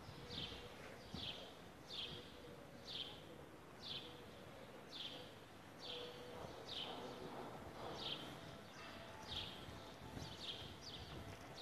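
Faint footsteps on paving while walking. Each step brings a short, high squeak that falls in pitch, about one to two a second in a steady rhythm.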